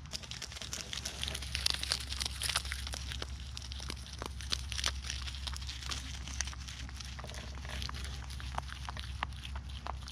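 Bottle-baby goat kids pulling and chewing leaves close to the microphone: a dense, irregular crackling and rustling of leaves, with small clicks throughout.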